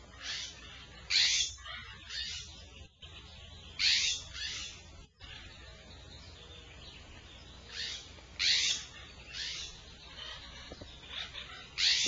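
Barn owls hissing: about ten short, raspy hisses, some in quick pairs, with irregular pauses between them.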